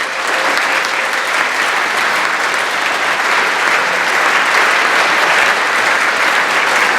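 A large audience applauding loudly and steadily, a dense roar of clapping with some cheering mixed in.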